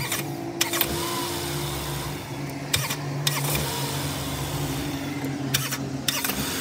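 Toyota 5A-FE 1.5-litre 16-valve inline-four petrol engine running steadily at idle, with a few sharp clicks in pairs about half a second apart.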